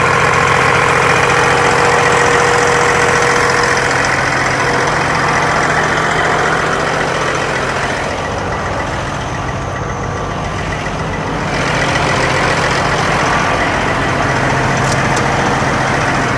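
Kenworth semi-truck's diesel engine idling steadily.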